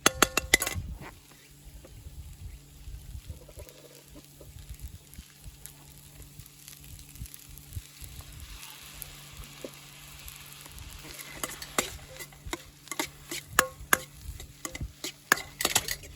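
Food frying in a wok over a wood fire, with a hiss that swells midway and a utensil knocking and scraping against the wok in clusters of sharp clicks, heaviest in the first second and over the last few seconds.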